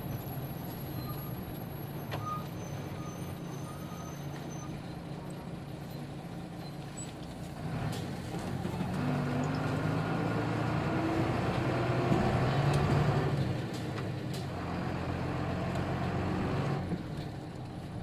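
Nissan Diesel KK-RM250GAN bus's diesel engine running at low revs, then pulling harder about eight seconds in, rising in pitch. It drops back briefly at a gear change, pulls again, and eases off near the end.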